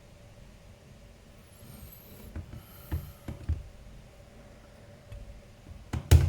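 Light clicks and taps of small laptop parts being handled during reassembly, a few spread through the middle and one loud sharp click near the end, over a faint steady hum.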